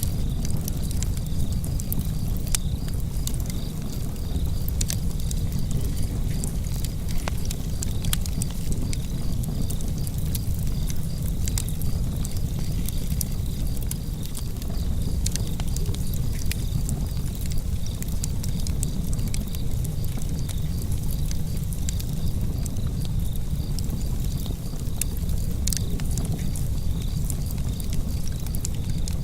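Wood fire burning in a fireplace: a steady low rumble of the flames with frequent sharp crackles and pops scattered irregularly throughout.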